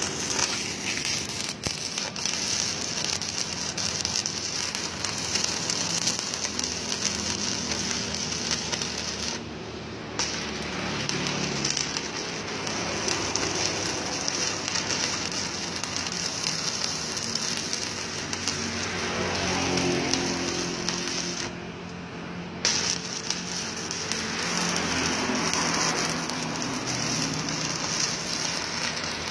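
Stick-welding arc from a Jasic ARC 250 inverter welder burning a 4 mm electrode at just over 200 A: a steady, loud crackling sizzle. It breaks off briefly twice, about ten seconds in and again a little past twenty seconds.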